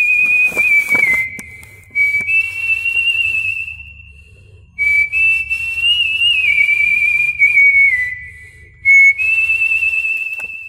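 A man whistling a melody into a handheld microphone, in phrases separated by short pauses, the held notes wavering with vibrato.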